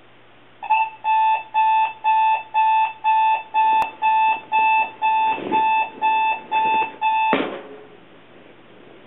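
Electronic alarm clock beeping, a high two-tone beep about twice a second, with some rustling midway; the beeping stops at a sharp thump a little over seven seconds in.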